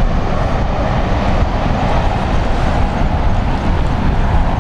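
Jet noise from a Boeing 737-800's CFM56-7B turbofans on landing approach, a steady rush heard from behind the aircraft as it flies away, mixed with wind noise on the microphone.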